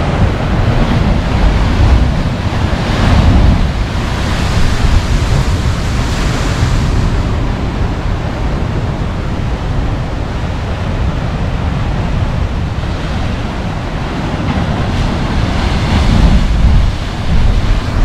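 Pacific Ocean surf crashing and washing over black volcanic rock ledges, a continuous rush that swells louder several times as waves break: about 3 seconds in, again a couple of seconds later, and near the end.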